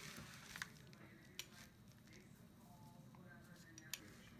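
Near silence with a few faint clicks of metal parts being handled as the Hi-Capa airsoft pistol's 7-inch outer barrel is fitted over the inner barrel.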